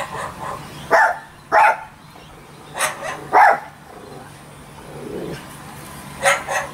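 Short, sharp dog-like barks, about seven in all, most in pairs about half a second apart.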